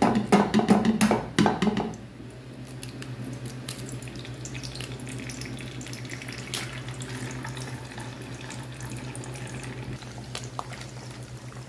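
Eggs frying in hot oil in a wok, sizzling with a steady fine crackle and scattered pops as they are cracked in and stirred with a wooden spatula. The first two seconds hold a louder burst of clatter, under a constant low hum.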